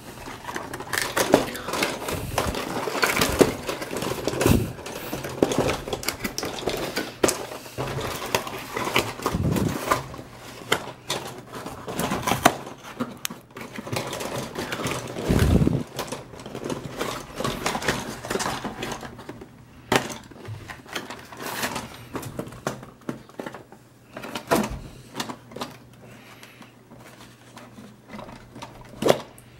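Hasbro Battle Masters Iron Man and Hulk fighting toys in play: hand-worked plastic handles swing the figures' arms, which clack and rattle against each other in a fast, irregular string of knocks, thinning out somewhat near the end.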